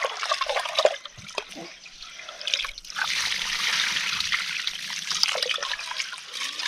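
Water trickling, with a few light clicks and knocks; it becomes steadier and louder about three seconds in.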